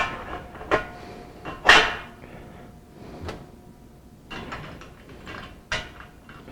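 Metal scaffold parts (casters and uprights) being handled and fitted: a handful of clanks and knocks, the loudest about two seconds in, some leaving a short metallic ring.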